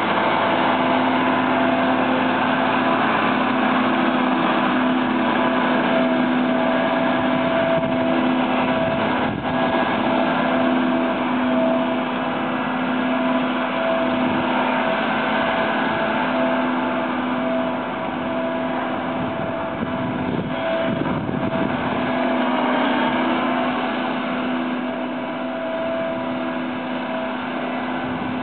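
Diesel engine of a John Deere 5430i self-propelled sprayer running at a steady pitch as the machine drives away, growing slightly fainter.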